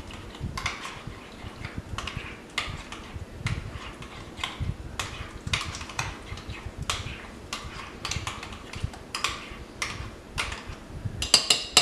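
A utensil stirring a mayonnaise and chopped-pickle sauce in a bowl, clicking lightly and irregularly against the bowl. Near the end comes a quicker run of sharper, evenly spaced taps.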